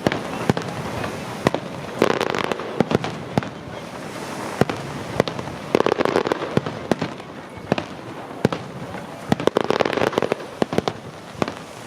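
Aerial fireworks display: a rapid, irregular run of sharp bangs and crackles, with three heavier bursts about four seconds apart.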